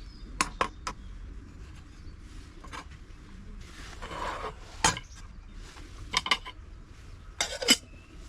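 Camping cookware and utensils clinking and knocking in a string of sharp, separate clinks, the loudest near the end, with a brief rustle about four seconds in.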